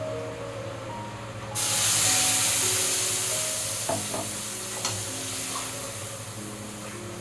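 Food sizzling in hot oil. The hiss starts suddenly and loud about one and a half seconds in, then slowly dies down, with a couple of sharp utensil clicks against the pan. Soft background music plays underneath.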